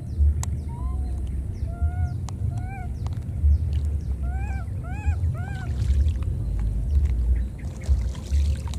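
Short animal calls that rise and fall in pitch: a few scattered ones, then four or five in quick succession about halfway through. Under them, a low buffeting rumble on the microphone.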